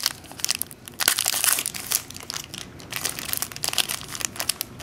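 Foil wrapper of a football trading-card pack being torn open and crinkled in the hands: a dense run of sharp crackles and rustles, loudest about a second in.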